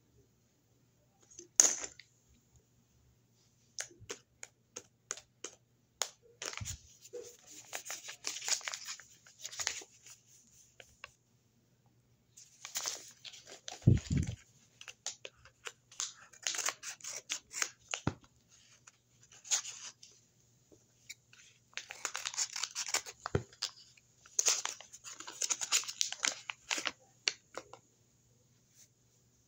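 Handmade paper blind bags being handled and torn open: irregular rustling, crinkling and tearing of paper in several bouts, with small clicks and taps and a soft thump about fourteen seconds in.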